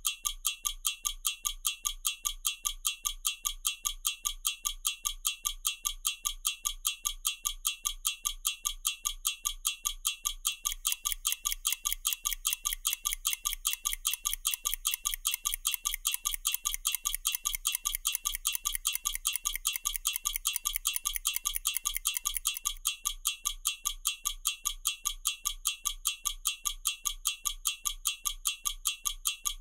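Mechanical stopwatch ticking in a rapid, perfectly even rhythm. The ticks sound brighter and fuller through the middle stretch.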